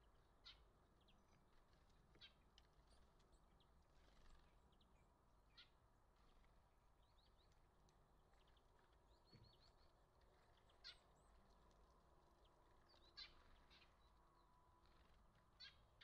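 Near silence outdoors, broken by faint, short bird chips, about six of them scattered a few seconds apart.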